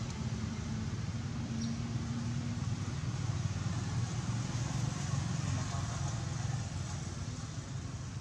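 A steady low rumble, with a brief faint high chirp about one and a half seconds in.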